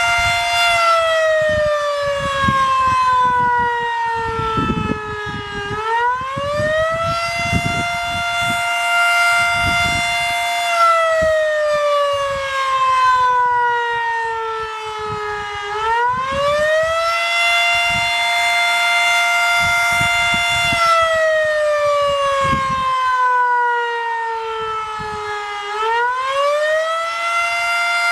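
W.S. Darley Champion electromechanical fire siren sounding a full attack cycle. Three times over, it holds a high pitch for about four seconds, winds down in a slow falling wail for about five seconds, then winds quickly back up.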